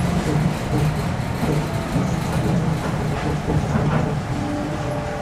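Nippori-Toneri Liner 300-series automated guideway car running, heard from inside the car: a steady low rumble of rubber tyres on the concrete guideway with faint steady whining tones from the drive.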